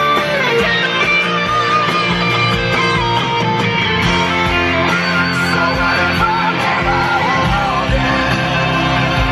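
Background music with guitar, loud and unbroken.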